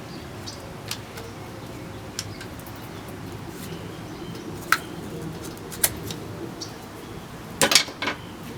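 Utility scissors snipping through a rubber garden hose: scattered sharp snips and clicks, with the loudest cluster of two or three near the end. The blades are not sharp, so the cut goes slowly.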